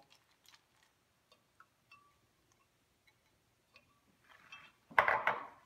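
Ice cubes clinking against a plastic jug of water as they are put in and stirred with a spoon: scattered light clicks, then a louder clatter about five seconds in.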